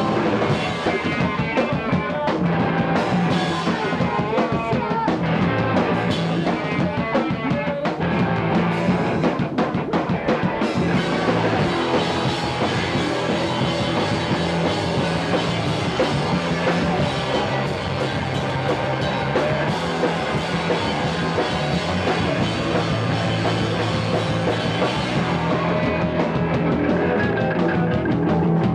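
Rock music, in a punk style, with a drum kit and guitar playing continuously.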